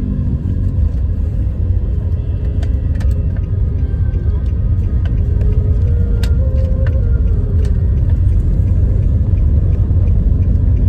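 Steady low rumble of a moving vehicle, with a few light clicks and knocks over it.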